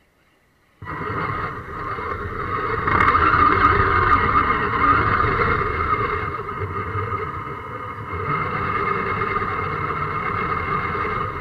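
RC scale crawler's electric motor and gear drivetrain starting up about a second in and running steadily under load as the truck drives, a whine that swells and eases with the throttle.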